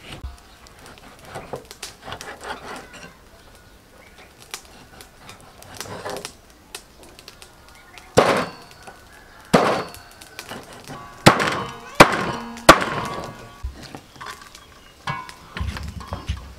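Cleaver chopping through a whole fish into steaks on a wooden chopping board: a few light cuts, then five hard chops in the second half, roughly a second apart, some with a short ring from the blade.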